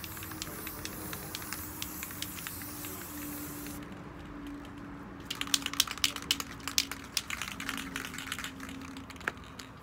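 Rust-Oleum American Accents metallic gold aerosol spray can hissing for about four seconds, then, after a short pause, quick rattling clicks as the can is shaken and its mixing ball knocks inside.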